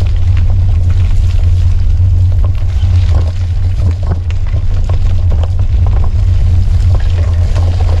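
Steady heavy low rumble of wind and ride vibration on a handlebar-mounted camera's microphone as a bicycle rolls over a dirt trail, with frequent small clicks and rattles from bumps in the track.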